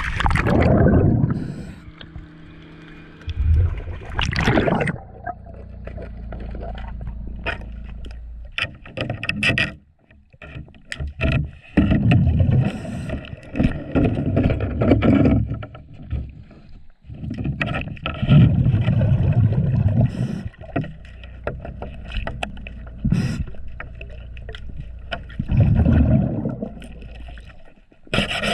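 Underwater sounds of a diver at a boat's trim tab: a splash at the start as the camera goes under, then loud gurgling bursts of exhaled bubbles every few seconds. Short clicks and knocks of a socket wrench on the anode bolt come in between.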